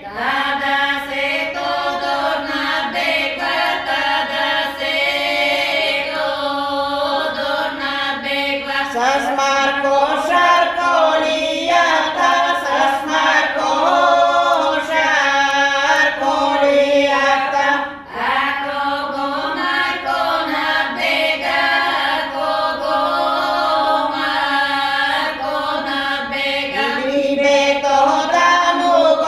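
A group of women singing a Bulgarian village folk song for Todorovden without instruments, with a brief break about eighteen seconds in.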